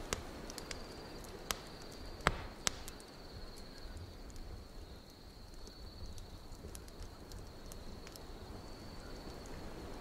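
Wood fire crackling, with a few sharp pops in the first three seconds, the loudest a little after two seconds in, over a steady high cricket trill and a low wind rumble.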